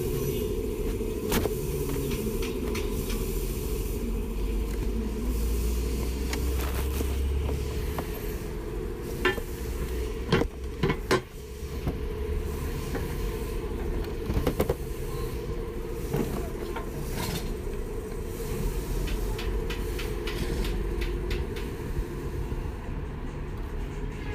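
Ride noise from an e-bike on pavement: a steady low rumble of the tyres and the moving bike. A few sharp knocks and rattles come in, clustered a little before the middle.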